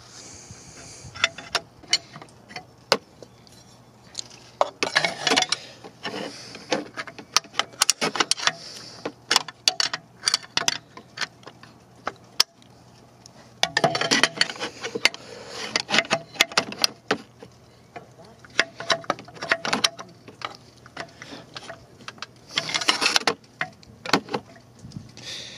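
Steel wrenches clinking, knocking and rattling against the fan clutch nut and the water pump pulley bolts as the nut is worked to break it loose. Three louder bursts of rattling come about a fifth of the way in, around the middle, and near the end.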